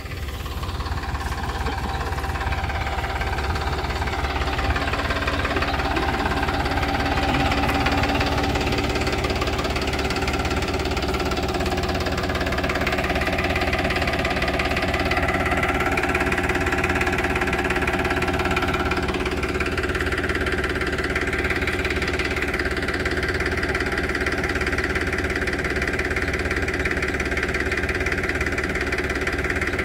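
Farmtrac 45 tractor's three-cylinder diesel engine running steadily at low speed while it drives a spray pump. The note stays even, with no hunting.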